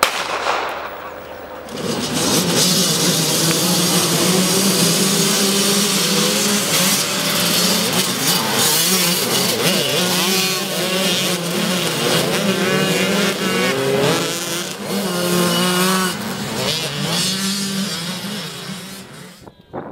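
A large pack of motocross bikes revving hard and accelerating away together from the start line about two seconds in. Many engines overlap, their pitches rising and falling as the riders shift, and the sound fades near the end.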